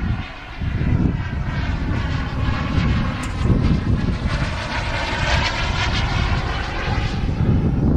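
Radio-controlled model jet flying past overhead, its engine rush steady and loud from about a second in, with a sweeping, phasing change in tone as it goes by.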